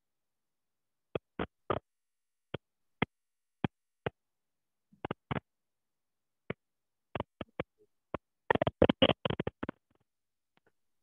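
Chalk tapping and scraping on a blackboard as words are written: short, irregular taps, with a quick flurry of them near the end.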